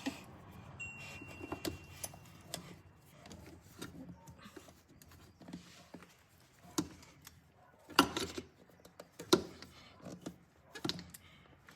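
Irregular metallic clicks and knocks from hand tools and parts being handled during a fuel filter change, with two sharper clanks about eight and nine seconds in.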